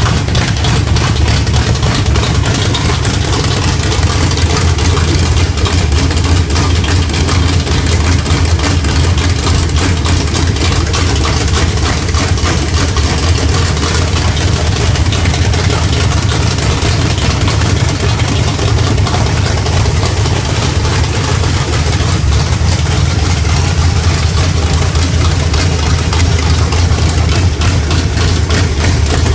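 Small-block Chevy 350 V8 with a Comp Cams Thumper hydraulic roller cam idling steadily; the uneven, choppy idle is called rough.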